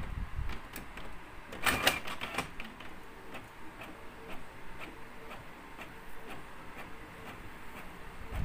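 Canon PIXMA MP287 inkjet printer printing a sheet: a louder burst of clicking about two seconds in, then a run of regular light ticks from the print mechanism.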